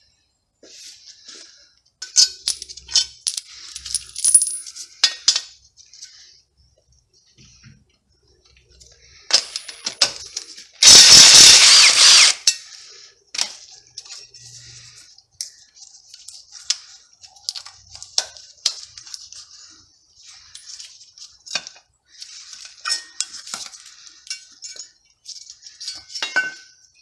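Metal tools and small steel parts clinking and clattering as they are handled at a car's wheel hub during a wheel bearing replacement. About eleven seconds in comes a loud, continuous burst of noise lasting about a second and a half.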